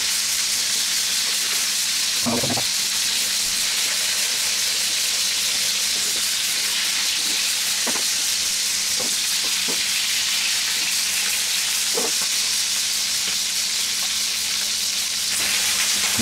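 Whole climbing perch (koi fish) frying in hot oil in a pan, giving a steady sizzle. A few short clicks come through it, about two, eight and twelve seconds in.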